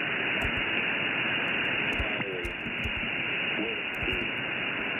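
Steady shortwave radio hiss from a single-sideband receiver tuned to the 8992 kHz HFGCS frequency, with a weak voice coming and going under the static, too faint to make out.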